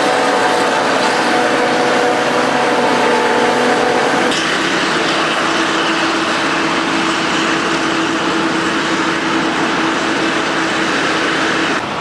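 Claas Jaguar 950 self-propelled forage harvester at work chopping maize: a loud, dense, steady mechanical din with a steady whine over it. The whine drops to a lower pitch at a cut about four seconds in.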